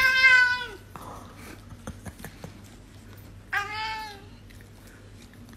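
Long-haired tabby cat meowing twice: a long meow at the start, then a shorter one about three and a half seconds in.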